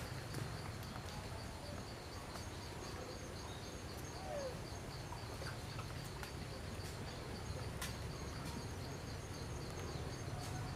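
Forest ambience: an insect chirping in a steady pulsing rhythm, a few pulses a second, over a low rumble. A few faint clicks and one brief squeak come through about four seconds in.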